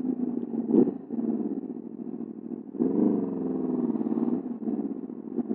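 2021 Aprilia RSV4 Factory's V4 engine running at fairly low revs, with a sharp pop about a second in and a short rise and fall in revs around the middle.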